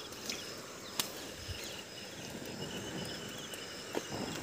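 Insects chirping steadily in short repeated high pulses over a rural background, with two sharp clicks, about a second in and near the end.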